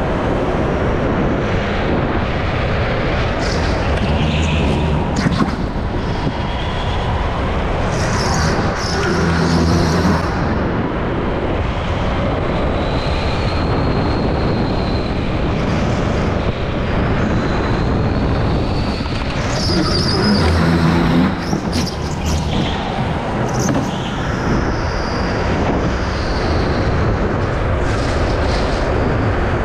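Go-kart being driven hard around an indoor track, heard from the driver's seat: a loud, steady rumble of the kart and rushing air on the onboard microphone, with a few brief high-pitched squeals now and then.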